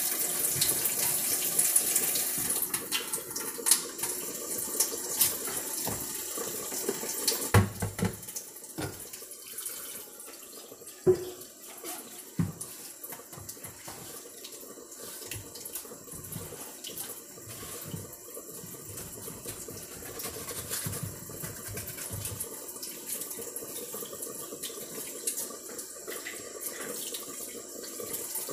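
Kitchen faucet running into the sink while dishes are washed, a steady hiss of water that is louder in the first few seconds. Now and then a pot or dish knocks and clinks against the sink.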